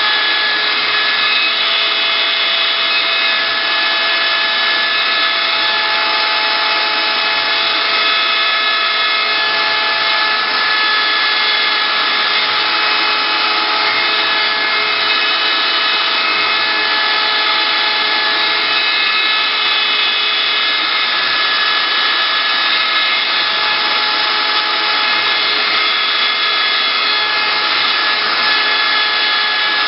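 CNC wood router running, its spindle giving a steady whine over the noise of the bit cutting wood.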